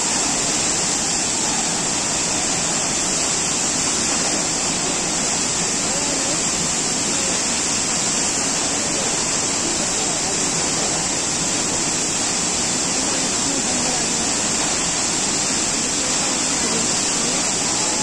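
Waterfall rushing, a loud, steady wash of falling water that does not let up.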